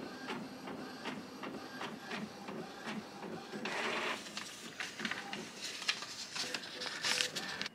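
Inkjet all-in-one printer making a copy: the print mechanism whirrs and clicks as the sheet feeds through. Paper rustles about four seconds in as the printed sheet is pulled out.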